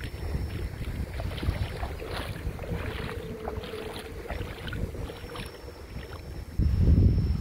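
Wind buffeting the microphone, with small splashes of shallow water. The wind gets suddenly louder near the end.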